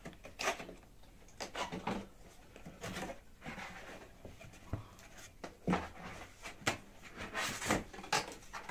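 Cardboard box flaps being pulled open and the packing inside handled: a series of short scrapes, rustles and knocks, the loudest near the end.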